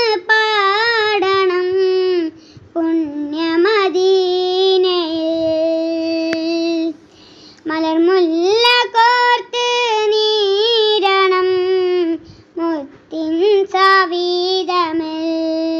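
A boy singing a devotional Malayalam madh song in praise of the Prophet, solo with no instruments. He sings in long, held, ornamented phrases with short breaks between them.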